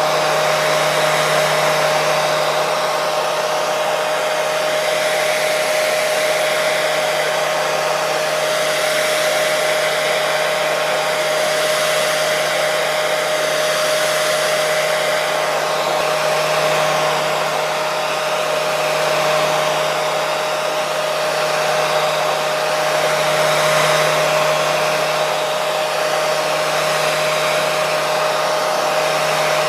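Hair dryer running steadily at one setting: a continuous rush of blown air with a constant motor whine under it.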